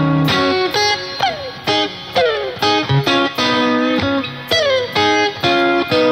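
Stratocaster-style electric guitar played lead: a run of single picked notes, several of them sliding down in pitch.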